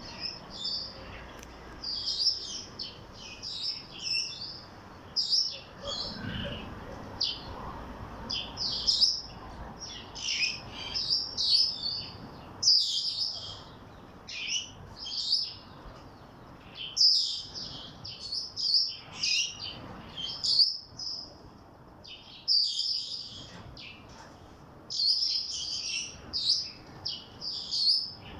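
Cockatiels chirping, with short, high calls in quick, irregular runs throughout.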